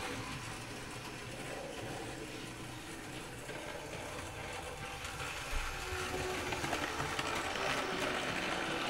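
Model train running along the track, its small electric motor and wheels getting louder from about halfway through as it approaches.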